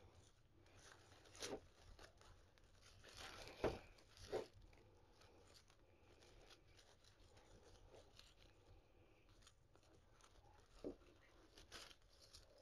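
Faint rustling and crackling of artificial floral stems and leaves being pushed and adjusted in a wreath: a few short rustles, the loudest about three and a half seconds in, over near-silent room tone.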